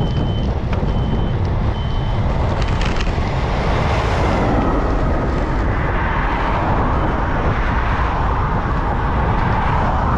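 Highway traffic noise with a steady rumble of wind on the microphone, swelling as a vehicle goes by about four seconds in. A short high beep repeats about once a second for the first couple of seconds.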